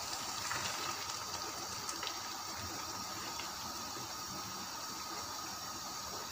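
Wooden spatula stirring a thin, watery tomato-onion gravy in a pan, freshly thinned with bottle gourd water: a steady wet swishing with a few faint ticks.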